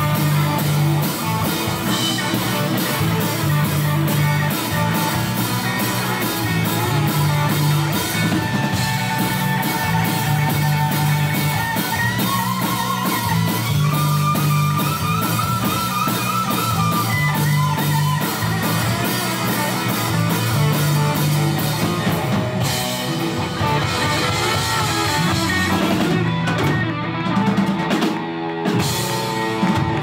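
Live rock band playing an instrumental passage with no vocals: electric guitars, bass and drum kit, with a lead line wavering in pitch through the middle. Near the end the band briefly cuts out twice.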